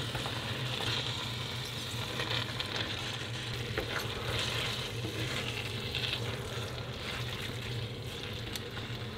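Pasta and oyster sauce sizzling in a frying pan while being stirred and tossed, with small scrapes and clicks of the utensil against the pan over a low steady hum.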